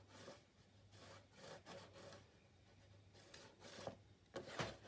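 Faint rubbing of cardstock under a bone folder and fingers pressing a glued fold down, a few short soft strokes over a low hum.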